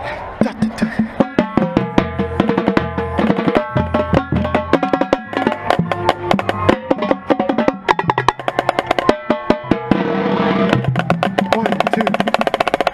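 Marching band drumline playing a fast percussion passage: rapid, dense drum strokes over low pitched bass-drum notes. The sound grows fuller and denser for the last few seconds.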